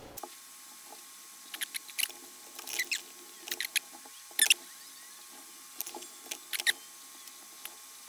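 Fingernails picking and peeling small label stickers off a plastic SAS connector, with light handling of the circuit card: scattered faint scratches and clicks, the sharpest about four and a half seconds in.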